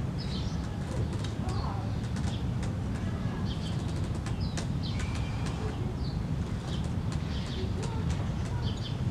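Outdoor ambience: small birds chirping in short repeated calls over a steady low rumble, with scattered light ticks.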